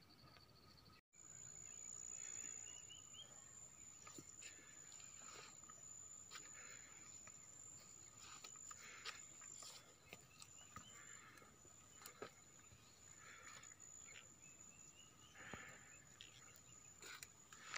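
Faint field ambience: a steady, high-pitched insect trill, with a few short rising bird chirps and scattered soft rustling clicks.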